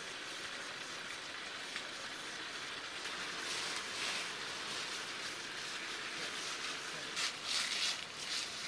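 Branches and leaves of a fruit tree rustling over a steady outdoor hiss, with a few louder swells, the loudest near the end, as fruit is picked by hand.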